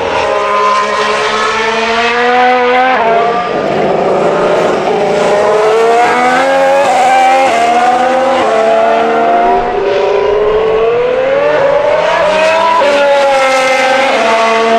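Ferrari Formula 1 car's 1.6-litre turbocharged hybrid V6 running at high revs under acceleration. The pitch climbs through each gear and drops sharply at quick upshifts, several times over.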